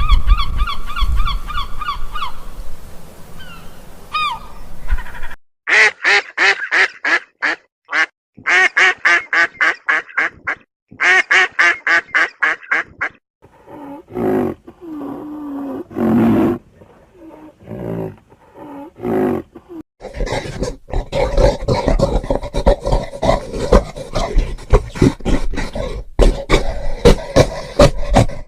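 Farm birds calling in a series of short clips: a rooster's crow trails off at the start, then runs of rapid, repeated calls, about three or four a second, broken by abrupt gaps where the clips change.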